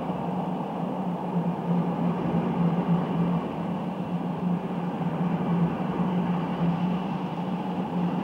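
Passenger train coaches rolling along the track: a steady running noise of wheels on rails, with a low hum underneath.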